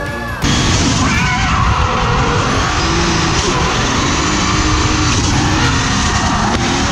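Drift car on track, heard from a camera mounted beside its spinning front wheel: engine running under loud, steady tyre and wind noise. Music cuts off abruptly about half a second in.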